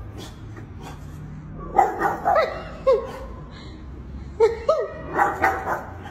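French bulldog barking in short, sharp yaps: a run of three or four about two seconds in, then another run of about four from the middle of the clip.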